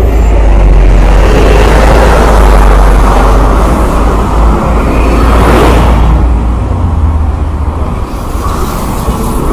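Articulated city bus driving past at close range: a steady low engine rumble with tyre and road noise, a short louder rush about halfway through, over general street traffic.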